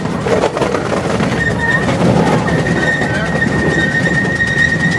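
Small park train rumbling and clattering along the track, with its wheels setting up a steady high squeal on a curve from about a second and a half in.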